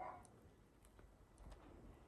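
Near silence, with a few faint, sharp clicks and taps.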